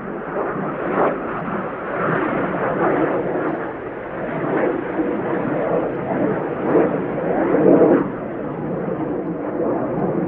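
Jet noise from a Panavia Tornado's twin RB199 turbofan engines as it flies away. It is a loud, uneven rushing sound that swells in waves and peaks about eight seconds in.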